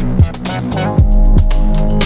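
Background music with a steady beat: punchy kick drum, sustained bass and a repeating melodic line.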